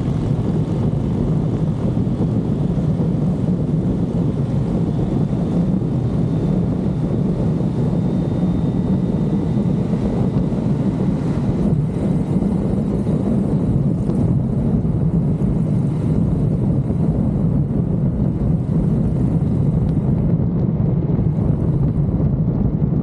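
Steady wind rush on a motorcycle-mounted microphone while riding at speed, with the motorcycle's engine and road noise running underneath.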